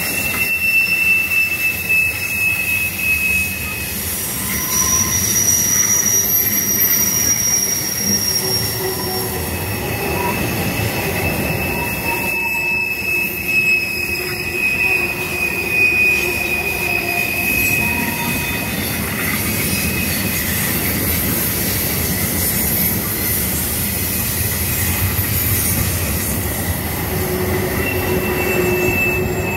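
Freight train cars rolling by on a curve, their steel wheels screaming against the rail in long, high-pitched squeals at several pitches that overlap, fade and start again over a steady rumble. The squeal comes from the wheel flanges grinding the rail as the cars round the bend.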